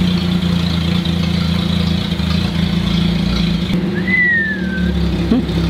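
Datsun 280ZX's L28E straight-six engine running steadily at low speed. About four seconds in, a brief high whistle-like tone falls in pitch.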